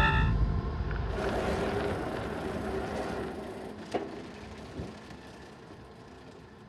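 A multi-tone horn chord cuts off just after the start. The rumble of a passing vehicle then fades steadily away.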